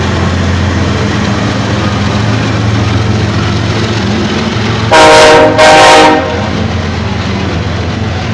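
Kansas City Southern de México diesel locomotives passing at close range, their engines giving a steady low drone. About five seconds in, a locomotive air horn sounds two short, loud blasts.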